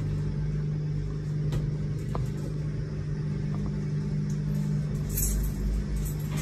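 2008 Schindler traction elevator in motion, heard from inside the car: a steady low hum over a rumble.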